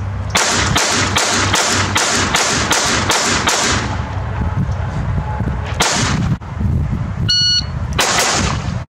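Glock 44 .22 LR pistol fired in a fast string of about ten shots, roughly three a second, followed by two more single shots a couple of seconds apart.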